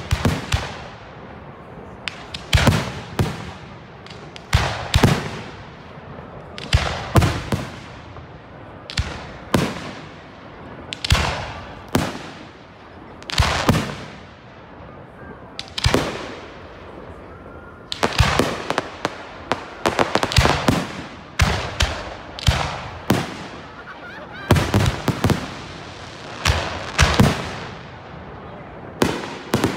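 Fireworks display: aerial shells bursting one after another, a sharp bang every second or so, often two in quick succession, each trailing off in a rolling echo. Near the end a dense crackling sets in.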